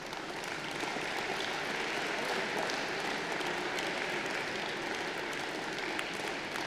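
Crowd applauding, the clapping swelling up just after the start and then holding steady.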